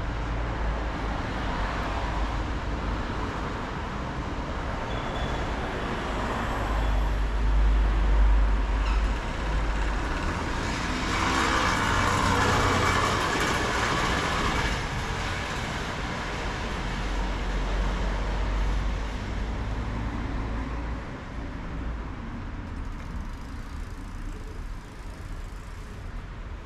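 Road traffic running steadily, with a vehicle passing louder about halfway through and the noise easing off near the end.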